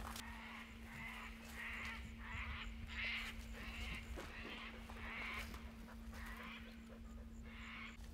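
A bird giving a long run of faint, harsh calls, about two a second, with a short pause about six seconds in.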